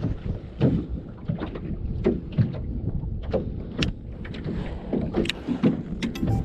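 Water slapping and knocking irregularly against the hull of a small boat, with wind on the microphone.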